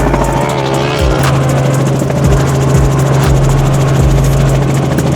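Helicopter running close by: a steady low engine drone with repeated low rotor thuds.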